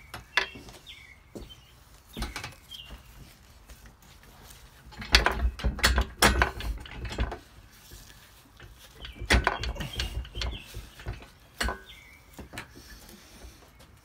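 Bursts of quick clattering knocks from tools being handled in a workshop: one cluster about five seconds in, another a little after nine seconds, and a few single knocks between.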